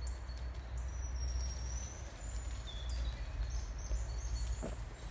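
Small birds giving thin high chirps and short whistles, over a steady low rumble.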